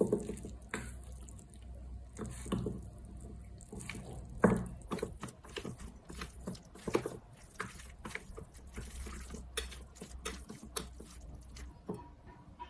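Wooden chopsticks toss cooked instant ramen noodles through thick, sticky stir-fry sauce in a stainless steel bowl: wet squelching of the coated noodles with many quick, irregular clicks of the chopsticks against the bowl, busier in the second half.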